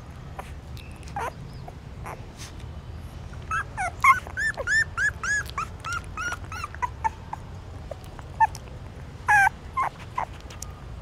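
Newborn puppies squeaking and whimpering while they nurse: a quick run of about ten short cries, each rising and falling in pitch, a few seconds in, then a few more near the end, with faint clicks in between.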